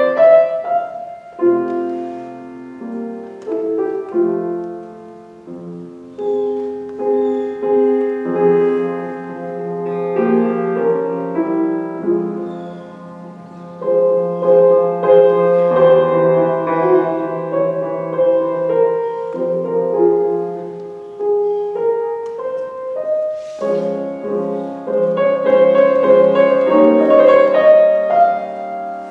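Solo grand piano playing classical music, in phrases that swell and fade, fullest and loudest near the end.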